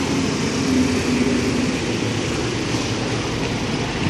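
Road traffic: a large cargo truck's engine rumbling steadily as it drives past close by, with a jeepney passing after it.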